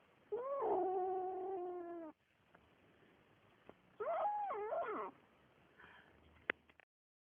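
Siamese kitten yowling while it eats meat, the greedy, food-guarding sound of a kitten that won't give up its food. There is one long drawn-out call lasting nearly two seconds, then a shorter wavering call about four seconds in, and a small click near the end.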